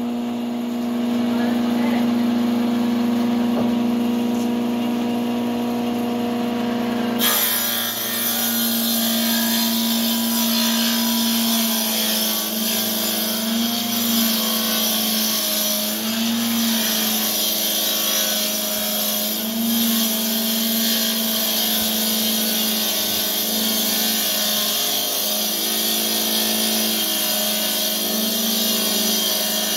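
Circular saw bench running with a steady motor hum while a long wooden plank is ripped through it. A hiss of cutting comes in about seven seconds in, and the motor's note wavers as it takes the load of the cut.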